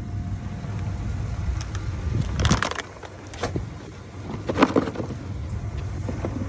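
A few short clattering, rattling noises, about two and a half, three and a half and four and a half seconds in, over a steady low rumble.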